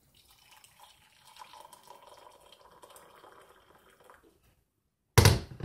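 Hot water pouring from a kettle into a mug, a steady pour lasting about four seconds. Near the end comes a sudden loud knock with a smaller one after it.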